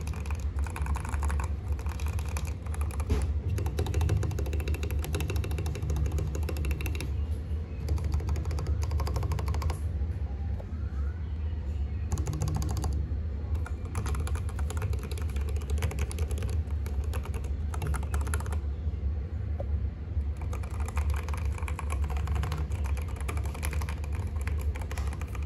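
Typing sound test on a rebuilt Leopold FC660M mechanical keyboard: a rapid, continuous clatter of key presses with a couple of brief pauses, over a steady low hum.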